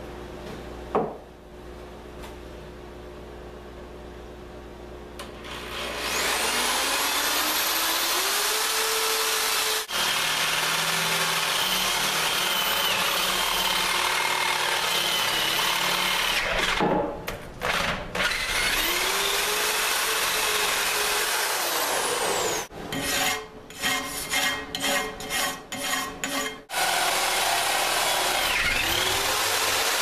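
Hand-held electric drill boring a half-inch hole through quarter-inch steel plate with a cobalt bit: a loud, steady grinding scrape, with the motor's pitch sagging and recovering under load. There is a single clunk about a second in, and the drilling starts about six seconds in. About three-quarters of the way through, the drill is run in a quick series of short on-off spurts.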